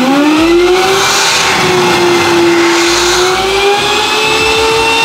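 Lake Lifter 24-volt DC brushless blower motor in a HydroHoist boat lift running at full speed: a loud whine over a rush of air. The whine finishes spinning up in the first second, holds steady, and climbs a little in pitch past the middle.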